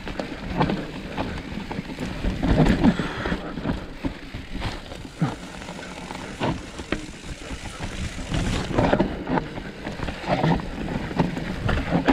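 Trek Slash 8 full-suspension mountain bike riding down a rough, wet trail: tyres rolling over dirt, rocks and roots, with irregular knocks and rattles from the chain and frame over a low rumble.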